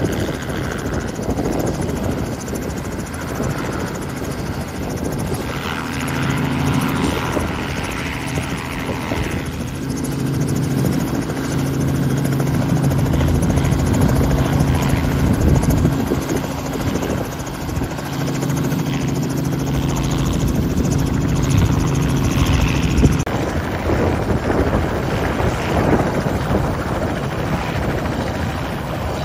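Robinson R44 helicopter running close by, low over the ground: the main rotor beats over the drone of its six-cylinder Lycoming piston engine. A steady hum stands out through the middle and drops away about three-quarters of the way through.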